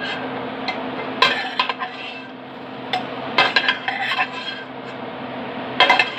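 A utensil clinking and scraping against a stainless steel pot as half-cooked carrot and potato pieces are scooped out of the hot oil, in several short clusters of clinks over a steady low hum.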